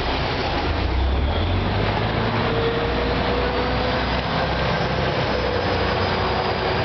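Chao Phraya Express river boat's engine running, a steady low rumble under a wash of noise, heard aboard the boat as it sets off. A faint steady hum joins in about two seconds in.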